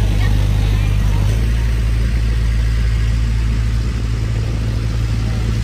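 Motorboat engine running steadily at cruising speed, heard from aboard, its low drone stepping slightly higher in pitch about a second in.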